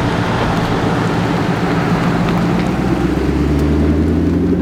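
Car engine running at high revs during a slide, with steady tyre and exhaust noise; the engine note changes about three seconds in.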